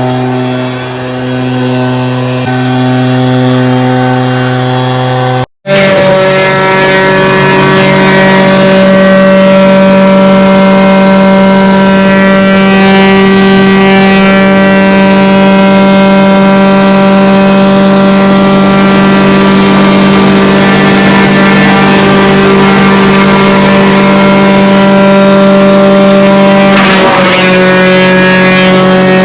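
Small petrol engine of tree-work equipment running steadily at high speed. It cuts out for an instant about five seconds in and picks up again at a slightly different pitch.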